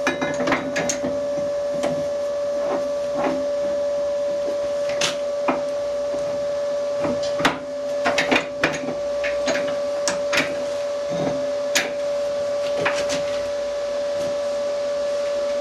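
Steady machine hum under irregular sharp metallic clicks and knocks, as tools work at a broken stud with metal welded onto its end.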